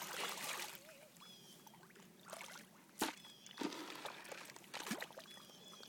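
A Siberian husky splashing and sloshing through shallow pond water in irregular bursts as he lunges after fish, with one sharp click about three seconds in.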